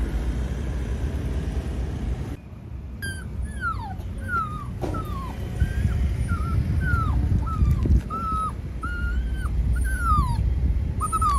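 A young puppy, about 25 days old, whimpering and crying: about a dozen high-pitched cries, each falling or arching in pitch, one every half second or so, beginning a couple of seconds in. A steady low rumble of road traffic runs underneath.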